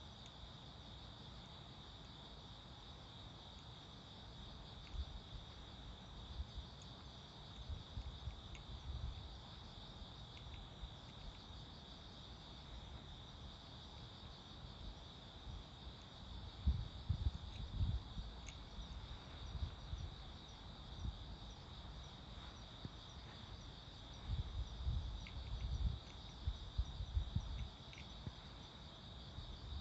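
Crickets chirping steadily in a high, unbroken chorus, with irregular low rumbles that come more often in the second half.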